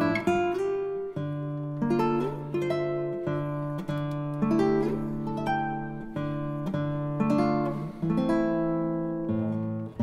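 Background music: a solo acoustic guitar playing a run of plucked notes over held bass notes.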